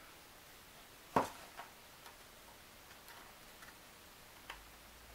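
A sharp tap about a second in, then a few faint clicks and ticks: a plastic glue bottle set down on a tabletop and small laser-cut wooden model parts being handled and pressed together.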